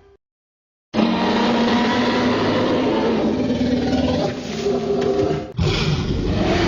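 Dinosaur roar sound effect: after a moment of silence, a long, rough roar starts abruptly and runs for about four seconds, then breaks off. Another loud sound cuts in near the end.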